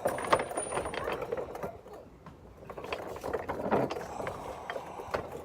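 Metal hand-tool work on skid plate bolts: irregular mechanical clicking and clinking, as of a socket ratchet, in two spells with a lull between.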